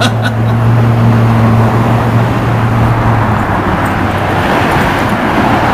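Road traffic noise with a motor vehicle's engine running close by: a steady low hum over a broad rushing noise, the hum fading out about four and a half seconds in.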